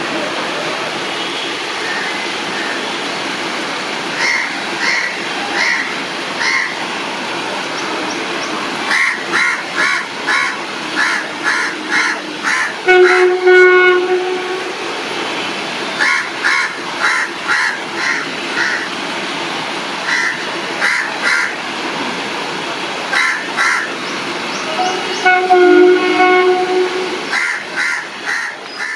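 An ALCo diesel locomotive runs with a steady rumble and sounds its horn twice, a long blast about halfway through and another near the end. Crows caw repeatedly in short runs throughout.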